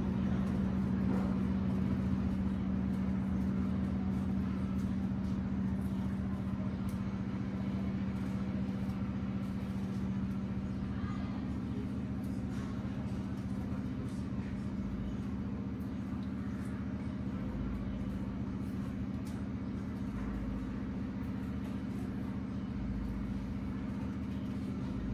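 A steady low mechanical hum, even and unchanging throughout, with faint light scrapes and ticks of a potato being peeled by hand.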